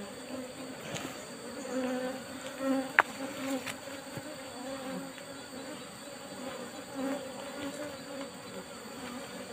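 Asian honeybees (Apis cerana) buzzing around their opened wild nest, the hum swelling and fading as single bees fly close past. One sharp click about three seconds in.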